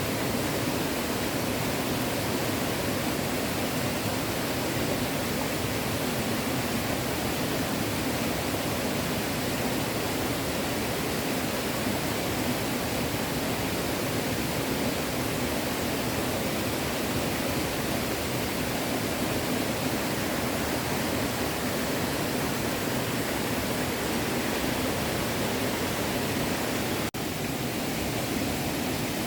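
Steady rushing of a small stream's flowing water, with a momentary break near the end.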